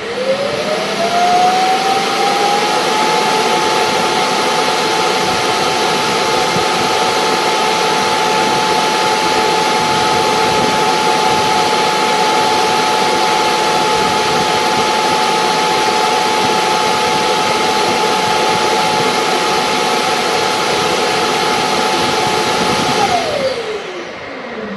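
ILIFE T10s self-emptying station's suction motor spinning up, running loud and steady with a high whine for about twenty seconds while it empties the robot's dustbin, then winding down near the end.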